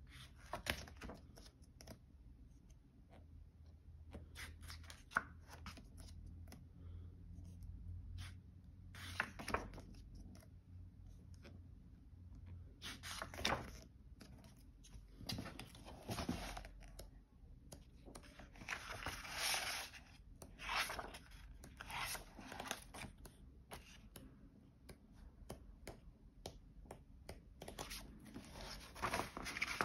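Pages of a paperback book being handled and turned by hand: several papery rustles and swishes a few seconds apart, with small clicks and taps of fingers on the paper between them.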